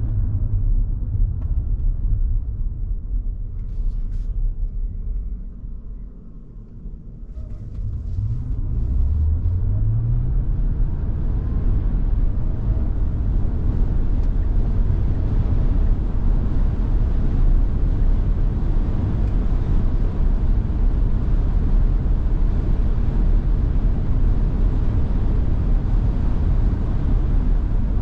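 Tesla Model Y heard from inside the cabin: a steady low rumble of tyre and wind noise on a very windy day. It dips about six seconds in, and a rising hum follows as the car picks up speed. The noise then holds steady and fuller at road speed.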